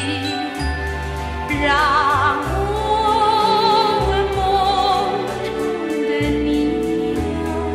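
A woman singing a Mandarin pop ballad with wide vibrato, over an orchestral accompaniment with a walking bass line.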